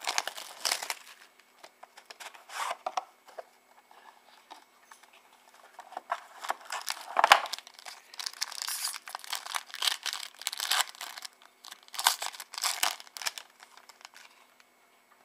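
Wrapping on a box of trading cards being torn and crinkled open, in irregular bursts of rustling and tearing with the sharpest tear about seven seconds in.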